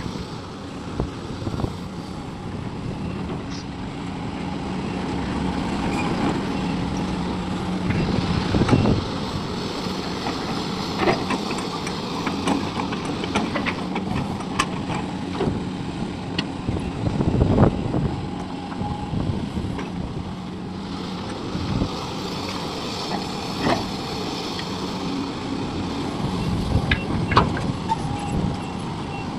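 Hydraulic excavator's diesel engine running steadily, with metallic clanks and knocks and a heavier thud about every nine seconds as it loads a dump truck.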